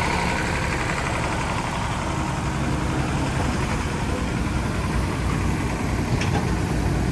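Diesel engine of heavy machinery idling steadily, an even low running with no revving.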